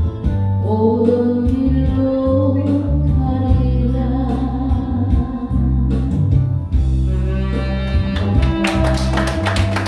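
Korean trot song: a singer's voice holding long, wavering notes over a backing track with steady bass, and drum hits coming in near the end.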